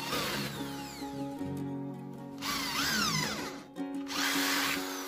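Corded electric hand drill boring holes through a thin sheet panel backed by a wooden board. It runs in three bursts, its motor whine rising as the trigger is squeezed and falling as it is let off.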